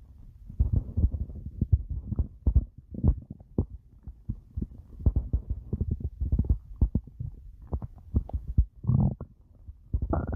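A person's stomach growling and gurgling: an irregular run of low rumbles and short popping gurgles, with longer drawn-out growls about nine seconds in and again near the end.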